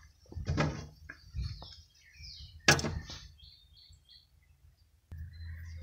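Light clicks and a sharp knock of hand tools on the engine's rocker arms, with small birds chirping faintly in the background. A low steady hum comes in near the end.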